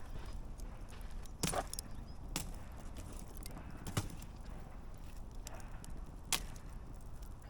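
Wood campfire burning with a low steady rumble and irregular sharp pops and crackles, the loudest about 1.5, 4 and 6.3 seconds in.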